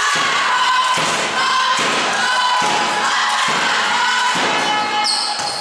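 Spectators in the sports hall chanting in unison over a steady beat of thuds a little more than once a second, echoing in the hall. Near the end a referee's whistle blows.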